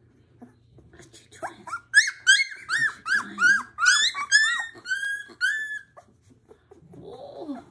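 Young Labrador retriever puppies, about two and a half weeks old, whining: a run of short, high squeaky cries, about three a second, starting a second or so in and stopping about six seconds in.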